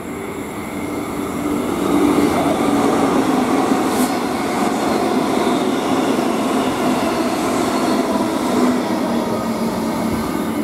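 Queensland Rail electric multiple-unit commuter train passing close along the platform: wheels on rails and motor hum, growing louder about a second and a half in, then staying loud as the carriages go by, with a brief click about four seconds in.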